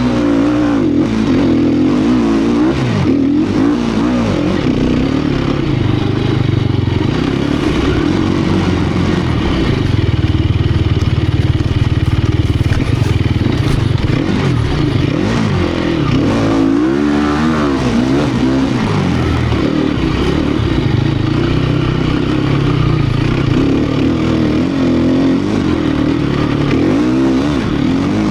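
2018 Sherco 250 SEF Factory's single-cylinder four-stroke engine revving up and down again and again under hard off-road riding, held at high revs for several seconds midway, with a few knocks and rattles from the bike over rough ground.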